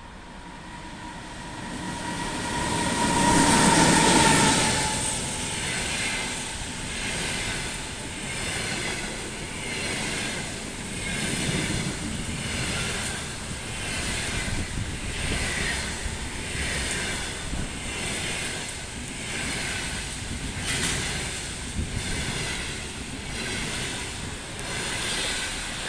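EP20 electric locomotive and a train of double-deck passenger coaches running through at speed. The locomotive is loudest about four seconds in, with a steady high tone that fades as it passes. The coaches follow, rolling by with a regular beat about every 1.3 seconds.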